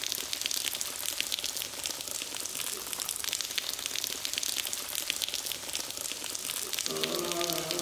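Rain pattering and dripping: a steady hiss crowded with small drop ticks. About a second before the end, a low chanting voice comes in.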